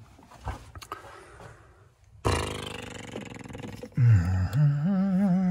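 A man's drawn-out vocal groan, low and wavering in pitch, from about four seconds in. It is preceded about two seconds in by a sudden noise that fades over a second or so.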